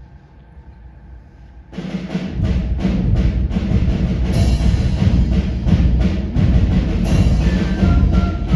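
A high school concert band starts playing about two seconds in, with heavy drum and percussion strokes under the full band; before that, only the quiet hum of the hall.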